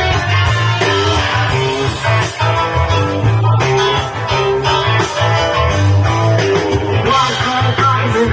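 Live rock band playing an instrumental passage: electric guitars over bass, drums and keyboard, with some singing.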